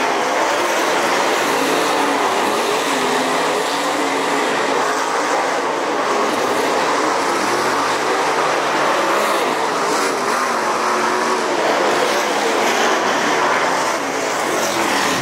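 Several dirt late model race cars' V8 engines running hard as they lap a dirt oval, a dense steady din whose pitch wavers up and down as the cars go through the turns.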